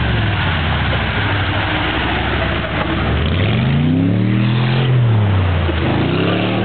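Off-road 4x4 race truck's engine working hard through a deep muddy water crossing. It runs steadily, then about three seconds in the revs climb and fall back, and they rise again near the end.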